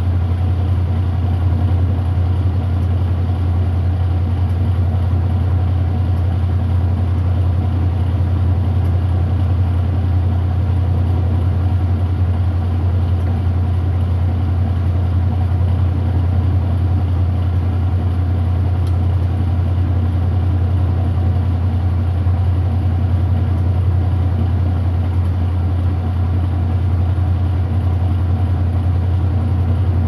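Kenmore 80 Series direct-drive top-loading washing machine spinning, motor and tub making a steady low hum.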